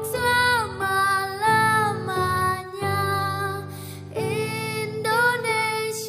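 Music: a song with a woman singing over instrumental accompaniment.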